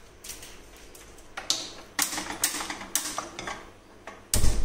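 A run of sharp clicks and knocks at the stove, about two a second, as a steel kadhai is handled and set on the burner. One heavier thump comes near the end.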